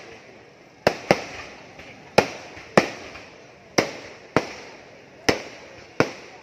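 Festival fireworks bursting overhead in a rapid, irregular string of sharp bangs, about eight in six seconds, each followed by a short fading echo.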